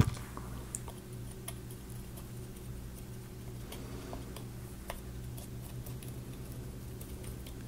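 Faint, scattered light clicks and taps from handling a laser-cut plywood gear mechanism while grease is worked onto a small wooden gear wheel with a plastic applicator tip, over a steady low hum.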